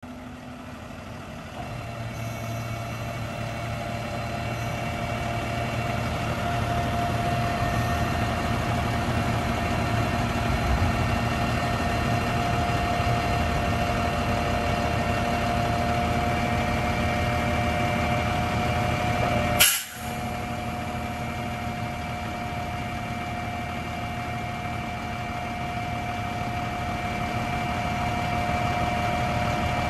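Freightliner M2106 dump truck's diesel engine running while its hydraulic hoist raises the dump bed, with a steady pump whine over the engine note that grows louder over the first several seconds. About two-thirds of the way through comes a single short, sharp burst of sound, then the running goes on.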